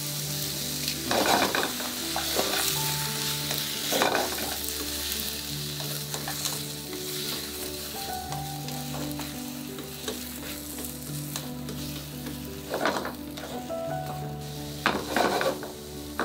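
Eggplant, zucchini, bell pepper, baby corn and cherry tomatoes sizzling steadily in olive oil in a frying pan. The vegetables are stirred now and then, giving a few short louder strokes about a second, two and a half and four seconds in, and again a few times near the end.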